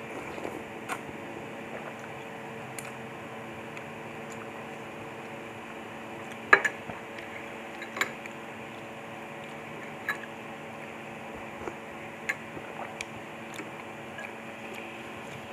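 Close-up eating sounds of lomi noodle soup: a soft slurp of noodles near the start, then scattered sharp clinks of a spoon and fork against the bowl and small mouth sounds. A steady low hum runs underneath.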